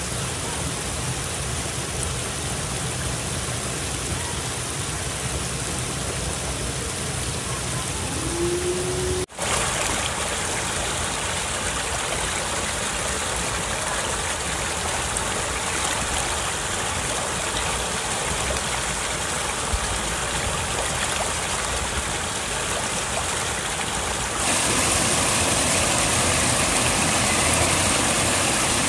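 Floodwater pouring over a low concrete weir and churning over rocks below: a steady rushing of falling water. There is a brief dropout about nine seconds in, and near the end the rushing becomes louder and brighter.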